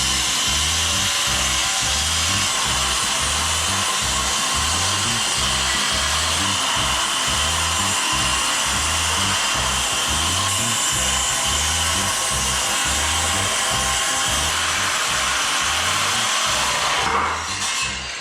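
Background music with a steady beat, mixed with the steady running of a power tool, which drops away near the end.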